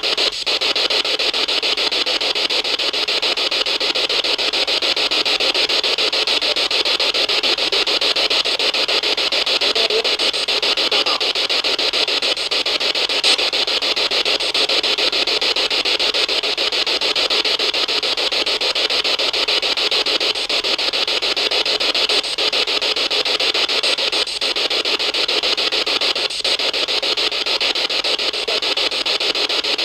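Steady, loud hiss of static with brief dropouts every few seconds.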